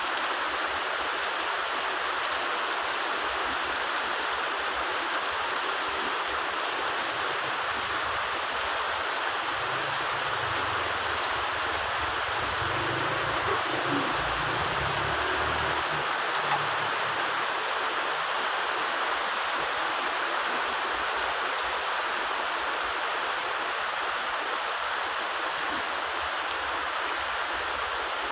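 Heavy rain falling steadily, with faint scattered drop ticks. About a third of the way in, a low rumble of thunder swells for several seconds and fades.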